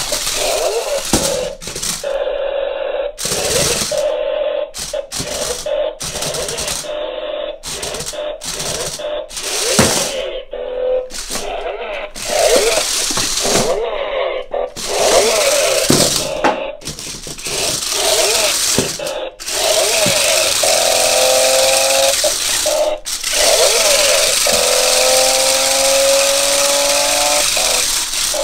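Electric motors of a toy RC stunt car whining as it drives in short spurts, stopping and starting again, its wheels rattling over a hard floor. The whine rises and falls in pitch over the last several seconds.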